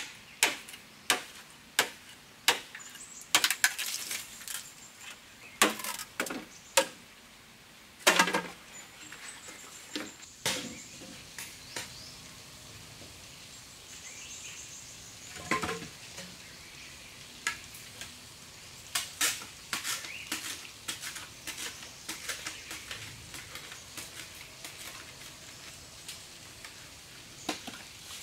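Machete striking and trimming a green bamboo pole: a long run of sharp, irregular knocks and clacks, some close together, with quieter stretches between.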